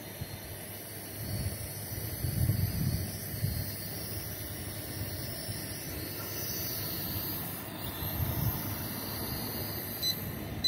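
Small quadcopter drone's propellers whirring steadily as it hovers, with wind gusting on the microphone in low rumbles now and then.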